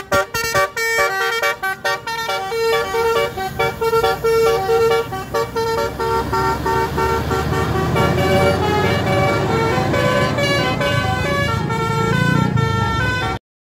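Bus 'telolet' (basuri) multi-tone horn playing a quick melody of short tooting notes. A low rumble builds underneath in the second half, and the sound cuts off suddenly near the end.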